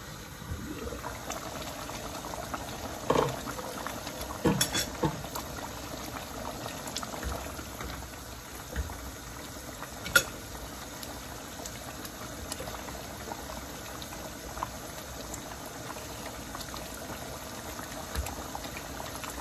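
Chicken simmering in a thick black-pepper masala paste in a pot, bubbling steadily, with a few sharp clacks of a slotted spatula against the pan.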